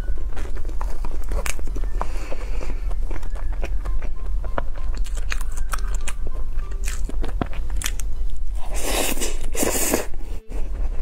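Close-up eating sounds of a strawberry cream cake: wet chewing with many small lip and mouth clicks, and two louder, longer mouth noises near the end as another spoonful goes in.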